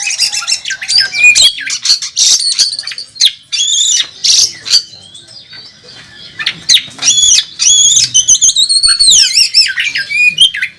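Oriental magpie-robin (kacer) singing loudly and aggressively, a fast run of harsh rasping notes and clear, sweeping whistles, with a pause of about a second and a half in the middle.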